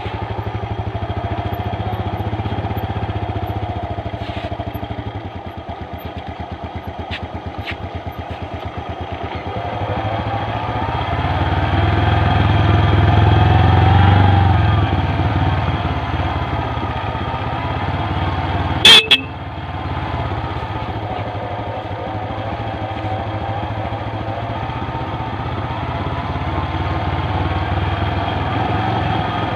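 Small motorcycle engine running under way, its pitch rising and falling with the throttle and growing louder for a few seconds midway. About two-thirds of the way through come two short, very loud blips.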